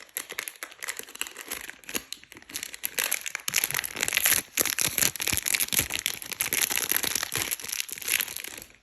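Plastic packaging being handled and crinkled, a dense crackling that grows busier about three seconds in and stops near the end.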